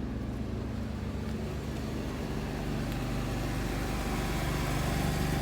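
Vehicle engine running steadily, growing a little louder toward the end.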